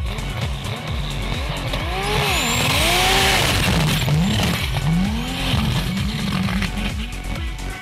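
Turbocharged 4x4 drag truck launching on sand, its engine revving up and dropping several times as it shifts up through a manual gearbox, with a burst of hiss near the launch. Electronic music plays underneath.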